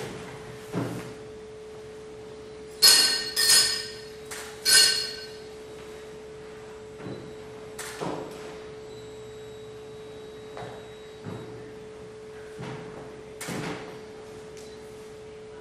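Hand-held iron instruments struck, giving ringing metallic strikes over a steady drone tone. Three loud strikes come about three to five seconds in, then softer scattered strikes.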